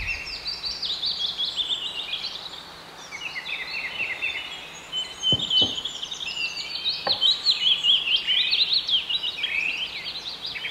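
Many small birds chirping at once, a dense chatter of quick, high chirps that goes on throughout, with a few short knocks around the middle.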